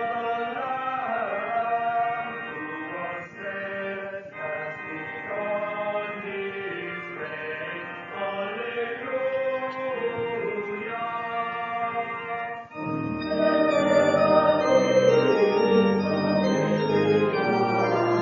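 Hymn music played on an organ, in slow sustained chords under a moving melody. It swells louder and fuller, with deeper bass notes, about 13 seconds in.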